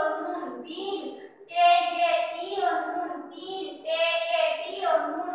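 A high voice reading Urdu words aloud in a drawn-out, sing-song chant, each word held and then cut by a short pause.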